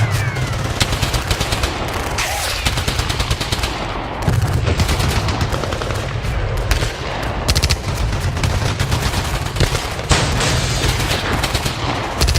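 Battle sound effect: rapid bursts of automatic gunfire and scattered single shots over a continuous low rumble of explosions.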